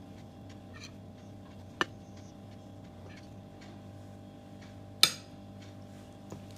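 Metal spoon clinking against glass dishes twice while flour is spooned into a mixing bowl: a light clink about two seconds in and a louder, ringing one about five seconds in, over a low steady hum.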